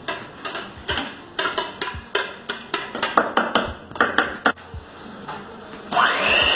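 Irregular clicks and knocks of a spoon against a blender jar and bowl as carrot cake batter is scraped out. About six seconds in, an electric hand mixer switches on and runs steadily.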